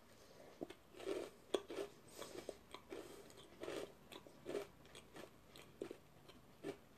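A person biting and chewing a crisp wafer biscuit with a chocolate spread filling: a string of faint, irregular crunches close to the microphone.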